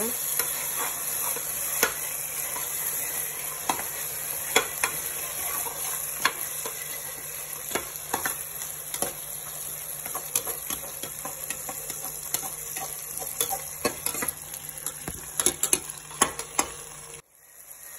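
Onions and chopped tomatoes sizzling in hot mustard oil in an open pressure cooker, while a metal spoon stirs them and scrapes and clicks against the pot. The sound cuts out briefly near the end.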